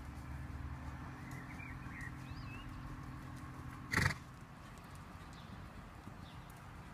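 Hoofbeats of a ridden Icelandic horse moving on arena sand, with a few short bird chirps early on. A single short, loud burst about four seconds in is the loudest sound.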